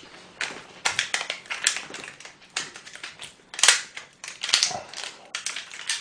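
Aluminium foil takeaway tray and its lid crinkling and crackling as they are handled and pulled open, a string of sharp snaps with the loudest a little past halfway.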